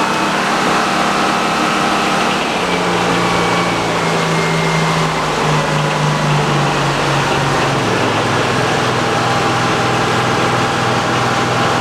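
A Frick sawmill's power unit and big circular saw running steadily. From about two seconds in, the running note falls in steps and settles lower as the air-operated clutch disengages the saw and the drive slows.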